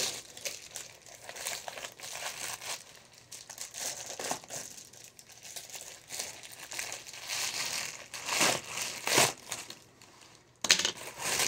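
Amazon shipping mailer crinkling and rustling as it is handled and opened by hand. There are louder crackles about eight and nine seconds in and a brief pause near the end.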